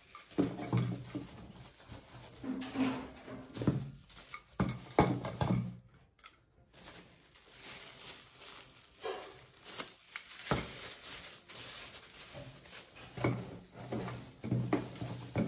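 Plastic wrapping crinkling and rustling as plastic spice jars are handled and slipped into a plastic bag, with cardboard rustling and a sharp click about ten and a half seconds in.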